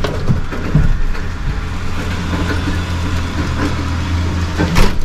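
Heavy goods vehicle's diesel engine running, heard from inside the cab as a steady low hum, with a few light clicks and one sharp knock near the end.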